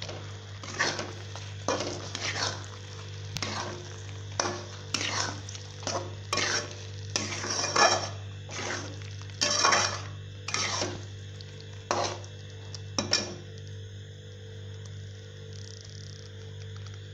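A metal spoon scraping and clinking against a steel pan as it stirs paneer cubes into a thick masala gravy. There are about a dozen separate strokes that stop about three quarters of the way through, over a steady low hum.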